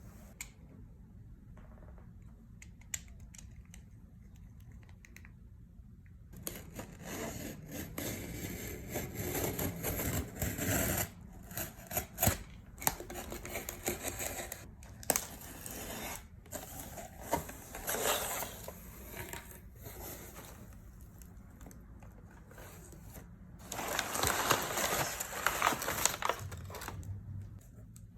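Packaging of a laptop hardshell case being handled and opened: plastic and cardboard rustling, crinkling and scraping, with sharp clicks and taps. After a few quiet seconds it starts, runs on irregularly, and grows loudest for a few seconds near the end.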